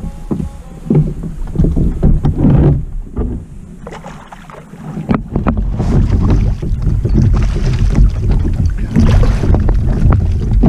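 Water splashing and lapping against a kayak's hull while the kayak moves, with wind rumbling on the microphone. It goes quieter for a moment about four seconds in.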